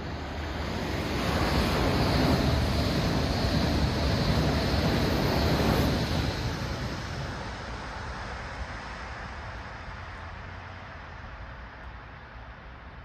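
A train passing by: a rushing roar of wheels and air that swells up, stays loud for about four seconds, then fades slowly away.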